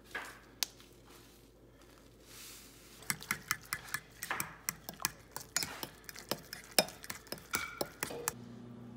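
A metal fork stirring instant mashed potato flakes into hot water in a ceramic bowl, clinking quickly and unevenly against the bowl. The clinking starts about three seconds in and stops a little after eight seconds.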